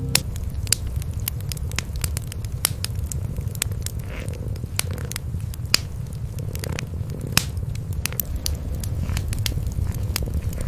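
Cats purring in a low, steady rumble, over a wood fire crackling with many sharp, irregular pops.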